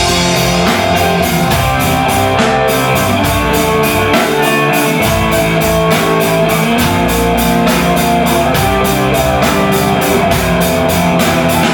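Rock band playing an instrumental break between sung lines: guitar over bass and drum kit, with cymbal strokes keeping an even beat.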